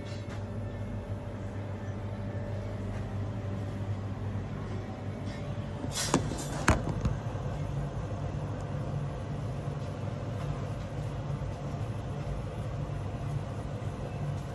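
Steady low hum of kitchen machinery, with a faint steady tone above it. Two or three short sharp knocks come about six to seven seconds in.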